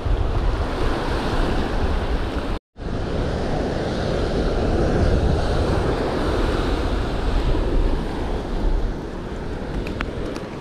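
Surf washing up the beach with wind buffeting the microphone, a steady rushing noise. The sound cuts out for a split second about a quarter of the way in, and a few faint clicks come near the end.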